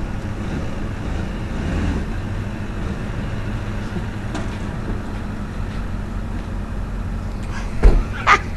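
Chevy Silverado 2500 HD's 6.6-litre V8 running steadily with a low drone. A loud knock comes near the end, followed by a short clatter.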